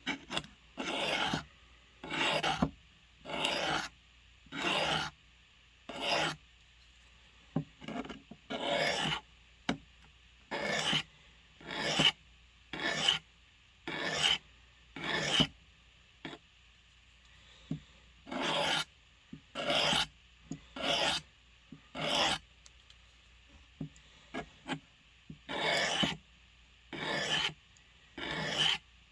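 A steel blade drawn in even strokes across a sharpening stone, a scrape about every second with a short pause partway through. Each stroke is a separate rasping pass along the edge.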